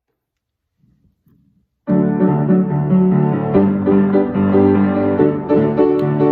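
Near silence, then about two seconds in a piano starts playing, a steady run of loud chords and notes: the introduction to a song.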